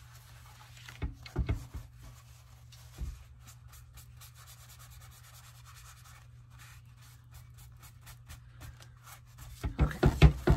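Paper towel rubbing and wiping over an inked paper tag on a glass cutting mat, blending the distress oxide ink, in quick light scratchy strokes. A few soft knocks and bumps come through as well, with a louder cluster near the end.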